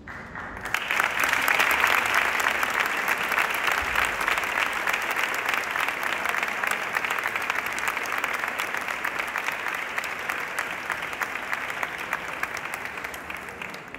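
Concert audience applauding: dense clapping that swells in about a second in, is loudest just after, and slowly eases off before stopping near the end.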